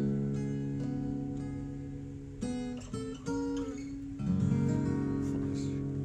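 Background music on strummed acoustic guitar: chords struck a few times, each left to ring and slowly fade.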